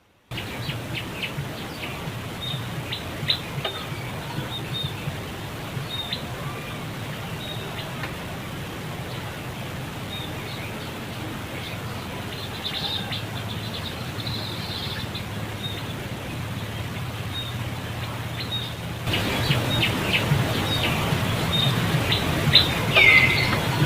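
Outdoor ambience of many short, high chirping calls over a steady low hum. The sound gets louder after a cut about 19 seconds in, and one falling call comes near the end.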